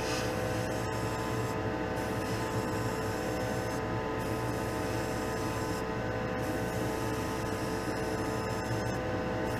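Spray booth exhaust fan running with a steady hum.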